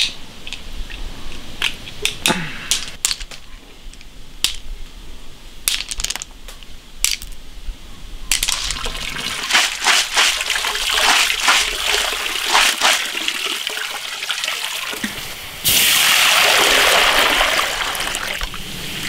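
River snail shells clicking and clattering as they are handled, then water sloshing over them, and from about three-quarters through a loud steady gush of running or pouring water.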